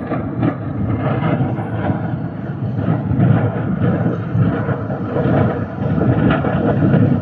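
Large industrial fire burning, a dense, unbroken crackle of many small explosions and pops over a low rumble.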